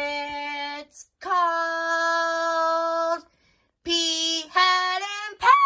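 A high voice singing the closing line of a children's theme song in long, steady held notes, with a quick slide down on the last note near the end.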